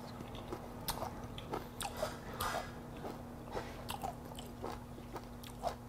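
A person chewing a mouthful of raw mudskipper sashimi close to the microphone: irregular wet smacks and crunches, about two a second.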